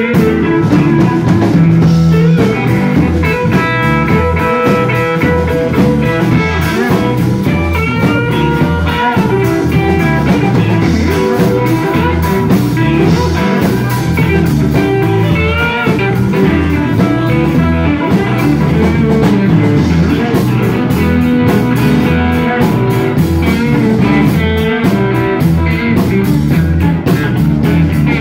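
Live blues band playing an instrumental passage: electric guitar lead with bent notes over bass guitar and a drum kit beat.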